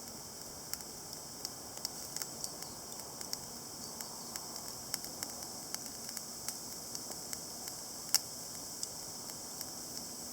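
Wood fire crackling: irregular sharp pops and ticks, one louder snap about eight seconds in, over a steady hiss.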